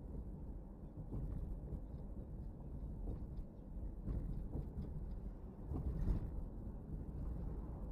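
Low, steady road and tyre rumble of a car driving, picked up by a dashcam inside the cabin, with a few short knocks from the road surface, the loudest about six seconds in.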